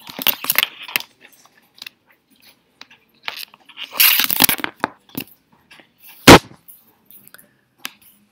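Handling noise of a laptop and its cable connections being unplugged and rearranged: scattered clicks and small knocks, a rustling scrape about four seconds in, and one loud knock about six seconds in.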